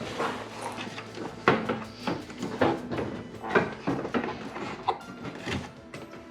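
Background music with sustained tones and a beat of about one sharp strike a second.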